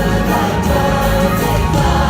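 Christmas music with a choir singing over a full orchestral backing and a steady bass.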